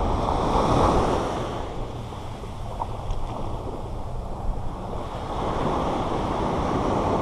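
Small surf waves breaking and washing up over the sand of the beach, a wash swelling in the first second and another building again late on.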